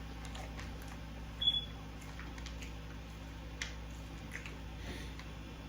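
Quiet eating and food-handling sounds: scattered small clicks and smacks, with a short high ping about one and a half seconds in.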